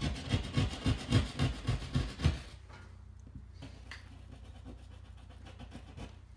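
Drywall pad saw cutting sheetrock with short, light strokes using just the tip of the blade, about four strokes a second. The sawing stops about two and a half seconds in.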